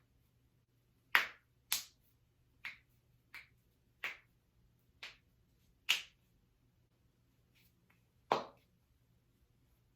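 Human joints being cracked: eight sharp pops at irregular intervals over about seven seconds, then a pause.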